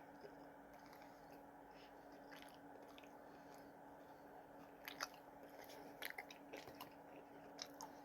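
Faint chewing and a few crisp crunches from about five seconds in, as a person eats fried pickle fries, over a low steady hum.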